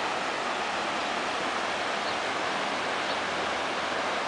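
Steady, even rush of floodwater from the Río Salinas running high and fast in spate after a hurricane.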